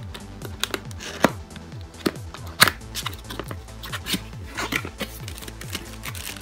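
Cardboard box being handled and opened: sharp taps and snaps of the box and flap, with scraping as a seal sticker is peeled back. The loudest snaps come about a second in and again near the middle. Background music with a steady low beat runs underneath.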